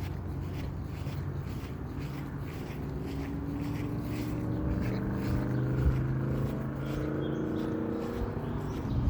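A motor vehicle going by, its engine tone swelling and then dropping in pitch as it passes, over a steady low hum.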